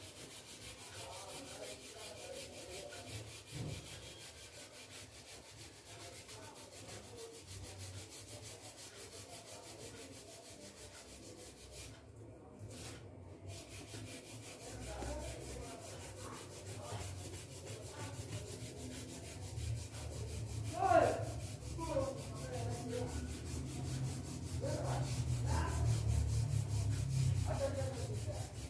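Folded tissue paper rubbing over oil pastel on a sheet of paper, blending the colours. The rubbing is continuous and grows louder in the second half.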